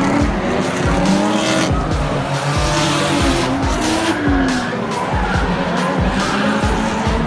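Drift cars sliding around the track, their engines revving up and down with tyre squeal and screech. Music with a steady beat plays underneath.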